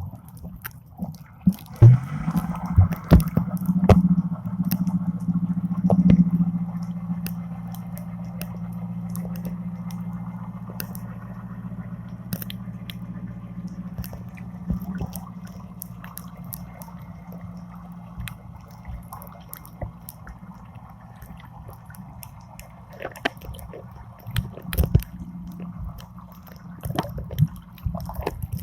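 Boat engine running with a steady low hum, strongest over the first several seconds, over scattered clicks, crackles and water sounds.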